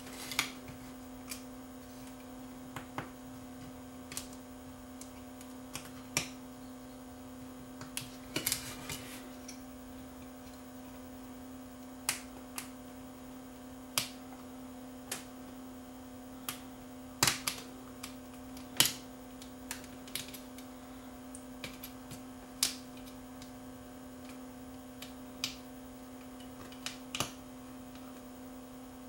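Irregular sharp clicks and ticks, a second or several apart, as a razor blade cuts through the pins of a flat-pack IC on a circuit board. A steady electrical hum runs underneath.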